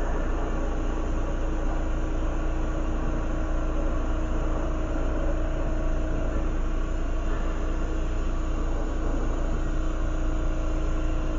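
Lampworking torch flame running steadily, a continuous even rush of noise with a steady hum beneath it, while glass is heated and stitched in the flame.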